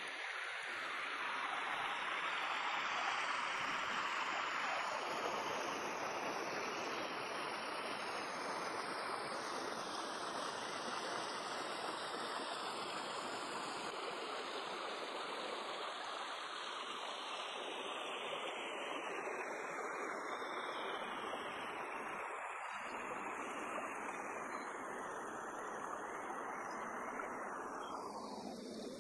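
Shallow stream running over rocks: a steady rush of water.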